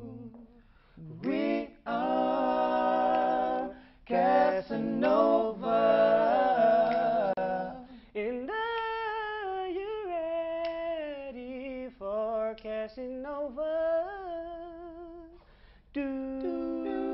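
Male a cappella trio singing in close harmony, with no instruments. Stacked voices sing held chords at the start, then a single voice carries a sliding melodic line with short gaps, and the group comes back on a held chord near the end.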